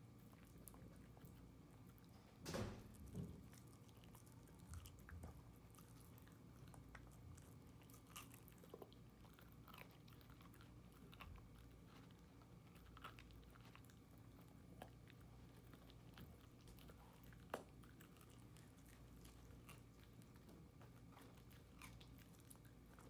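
Cavalier King Charles spaniel gnawing a chew stick: faint, scattered crunches and clicks of teeth on the chew over a low steady room hum, with a louder thump about two and a half seconds in.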